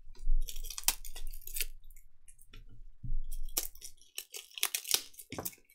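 Panini Donruss basketball trading cards being handled: a run of short clicks and rustles as the cards are flicked through and put down, with a cluster near the start and another from a little past the middle.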